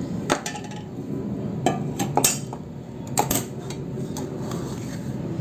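Long steel spoon stirring jaggery syrup into roasted pearl millet flour in a white bowl. It scrapes steadily, with a handful of sharp clinks of metal against the bowl.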